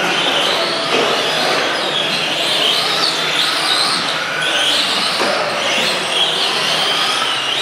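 Several electric RC Euro race trucks running laps together: high-pitched motor and gear whines rising and falling as they accelerate and slow, over a steady hiss.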